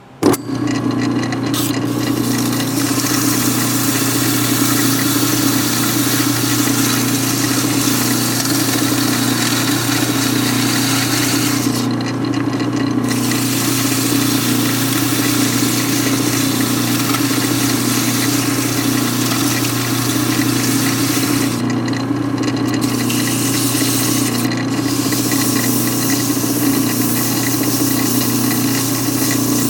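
A lathe switches on and runs steadily with a constant hum while 400-grit wet sandpaper is held against the spinning piston, giving a rasping hiss. The hiss drops away briefly about twelve and twenty-two seconds in.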